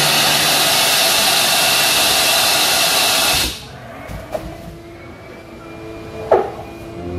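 Loud steady rush of air inflating a demonstration car's curtain and side airbags, cutting off suddenly about three and a half seconds in. A single click follows near the end.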